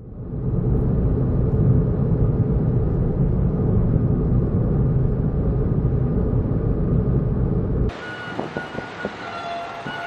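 Car driving along a road: a steady, loud low rumble of engine and tyre noise. About eight seconds in it cuts off abruptly to quieter town ambience with a few faint high tones.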